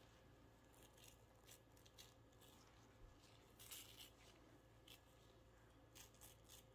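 Faint, brief flicks of a thumb running along an old toothbrush's bristles, spattering thinned paint. A handful come scattered through, the strongest about four seconds in.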